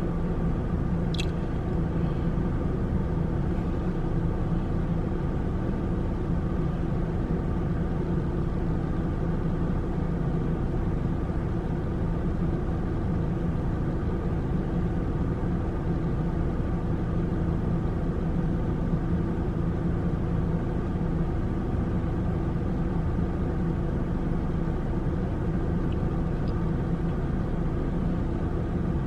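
Car engine idling while parked, heard inside the cabin: a steady, unchanging hum.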